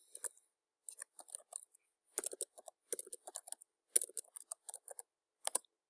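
Typing on a computer keyboard: irregular key clicks, a few scattered at first, then a quicker run of keystrokes from about two seconds in.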